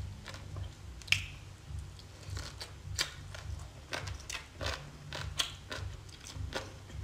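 Close-miked eating sounds: wet chewing and irregular mouth clicks from eating seaweed salad and raw fish, with one sharper click about a second in, over a low steady hum.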